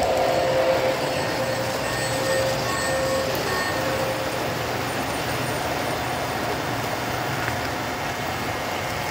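Three-rail O-gauge model trains running past on the layout: a steady rumble of metal wheels and electric motors on the track. A held tone rides over it for the first three seconds or so and then fades.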